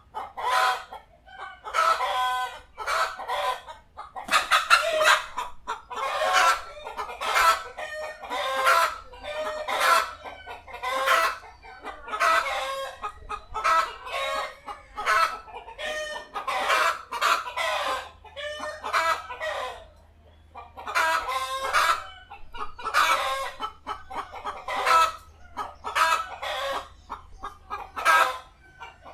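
Domestic chicken clucking and cackling: runs of short, repeated calls separated by brief pauses.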